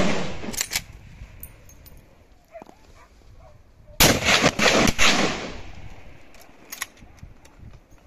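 Gunshots on a wild boar hunt: one shot at the start, then a quick volley of several shots about four seconds in. Each shot echoes and dies away slowly.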